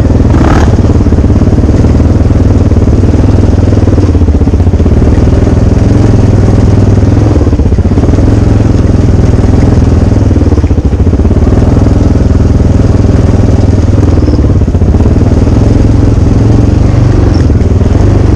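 An engine running loudly and steadily, its low hum unchanging throughout.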